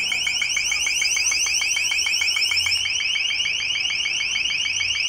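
Long-range acoustic device (military sound cannon) sounding its high-pitched deterrent alarm, a steady run of rapidly repeating rising chirps, played back from a video through computer speakers.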